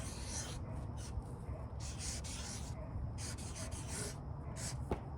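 Writing on a painted canvas: a series of short, scratchy strokes as the letters are drawn, with a sharp click near the end.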